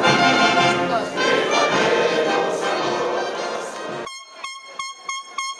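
Brass band playing. About four seconds in, the music cuts off and a run of short, evenly spaced pitched toots follows, about four a second.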